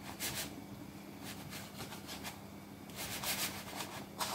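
Hands pressing and rubbing a raw pastry sheet against the sides of a pie dish: several short, soft rustling rubs, over a faint steady hum.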